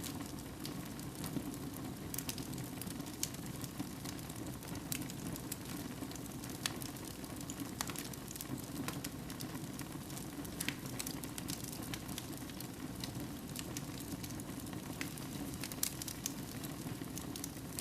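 Wood fire burning in a fireplace: a steady low rush of flames with irregular sharp crackles and pops from the burning wood.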